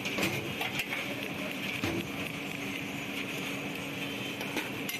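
Chicken masala frying in oil on a large flat griddle: a steady sizzle, with a few sharp clicks near the start and again near the end.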